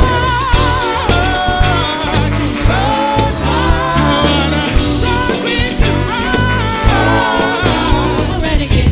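Live band music: a lead singer over a pulsing bass line and drums.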